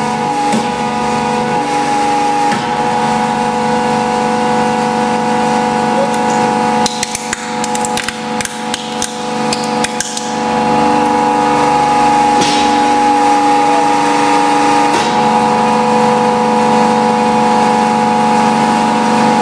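Hydraulic press running with a steady machine hum while its ram crushes a toy car: from about seven to ten seconds in, the car cracks and crunches in a run of sharp snaps. The hum goes on after the crush and changes note about fifteen seconds in.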